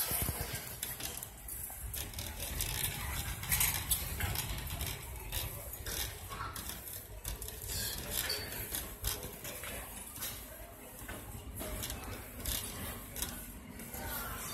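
Metal shopping cart being pushed down a store aisle: the wheels rumble on the hard floor while the wire basket rattles and clinks in scattered short clicks.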